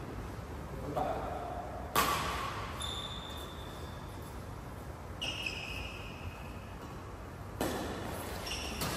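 Badminton rackets striking a shuttlecock: a sharp crack about two seconds in and two more near the end, each ringing briefly in the hall. Between them come short high squeaks of court shoes on the floor.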